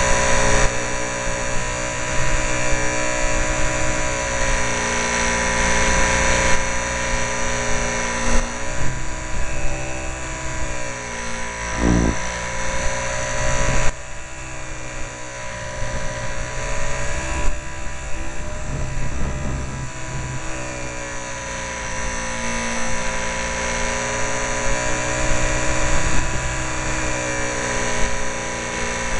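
Small RC airplane's motor and propeller heard from a camera mounted on the plane: a steady buzzing whine over a rush of noise. Its pitch dips and shifts several times, then settles back.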